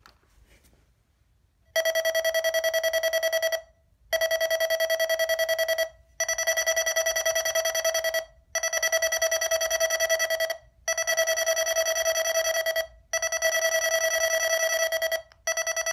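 Eton ZoneGuard wireless alert modules sounding their test alert: a loud, rapidly pulsing high beep in bursts of about two seconds, separated by short breaks, starting about two seconds in and repeating six times.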